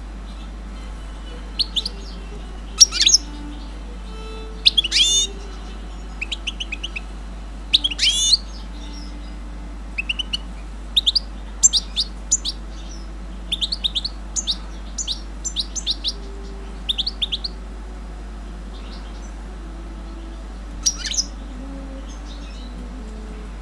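Small caged birds chirping: short, sharp, high chirps come singly and in quick runs of three or four, with pauses of a second or two between groups.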